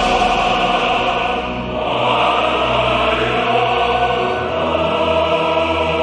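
Choir singing with orchestral accompaniment, in sustained held chords; the bass line changes about four seconds in.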